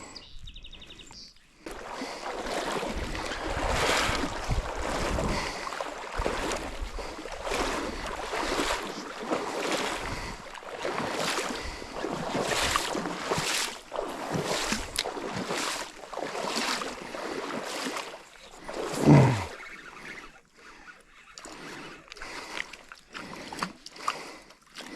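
Water sloshing and splashing in a creek in rhythmic swishes about one and a half times a second, with low wind rumble on the microphone. Near the end comes a brief loud low sound that falls in pitch.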